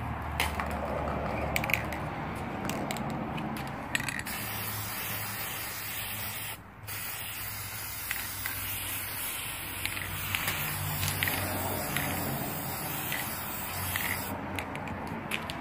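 Aerosol spray-paint can hissing in long sprays, with a short break about seven seconds in, stopping shortly before the end. A few clicks come before the main spraying.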